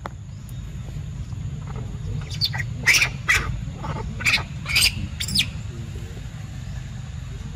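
Young macaques squealing: a run of about seven short, high-pitched squeals between about two and five and a half seconds in, a few of them sliding down in pitch, over a steady low rumble.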